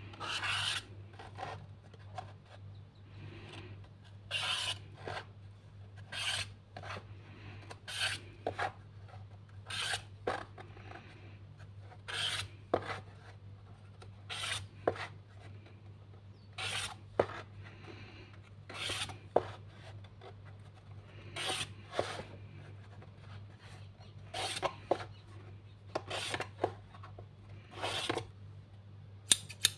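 Felt-tip marker drawn along a plastic ruler across cardboard, a short scratchy stroke about every two seconds, with small clicks between strokes.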